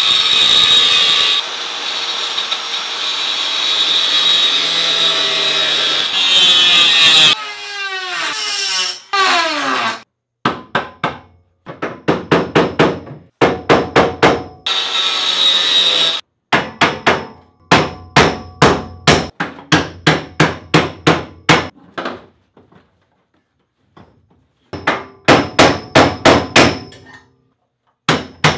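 A power grinder with a cut-off disc cutting into the tack welds that hold a steel roll cage to its base plates, running steadily for about seven seconds, then winding down with a falling whine. Then a hammer drives a screwdriver against the welds to break them loose: quick runs of ringing metal blows, about two or three a second, with a short second burst of grinding partway through.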